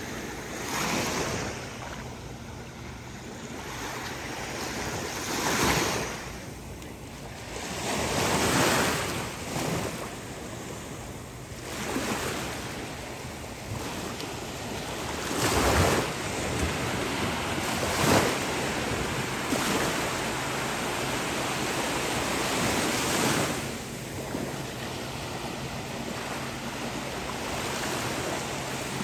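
Small ocean waves breaking and washing up the shore, surging every few seconds over a steady hiss of surf. A faint steady low hum runs underneath.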